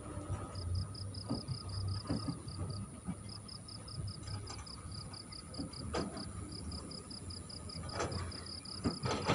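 An insect chirping: a steady run of short, high pulses, about six or seven a second, broken by a few brief pauses, over a low rumble.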